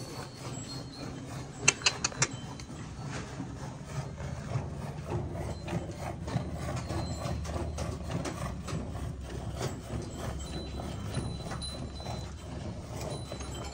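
Cow being milked by hand: rhythmic squirts of milk into a bucket, with a few sharp clicks about two seconds in.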